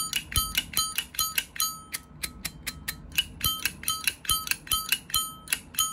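Zippo lighter's lid being flicked open and snapped shut over and over, a quick run of sharp metal clicks, many of them with a clear bell-like ring that hangs on briefly. That ringing ping is the lighter's "âm chuông vang ngân", a resonant bell tone that collectors prize.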